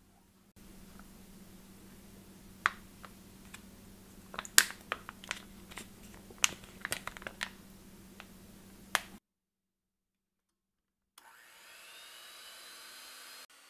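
A string of sharp clicks and taps over a steady low hum while whipping cream is poured into a glass bowl, then, after a short silence, an electric hand mixer starts whipping the cream: a steady whirring motor with a faint whine that rises as it gets up to speed.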